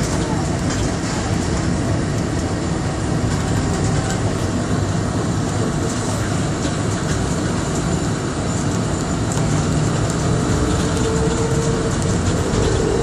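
Inside the cabin of a Bombardier Innovia APM 100 rubber-tyred people mover running along its guideway: a steady rumble from the tyres, with a faint high whine over it. A mid-pitched tone comes in near the end.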